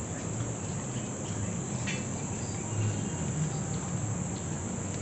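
Insects droning in a steady, high-pitched, unbroken hum over a low background rumble.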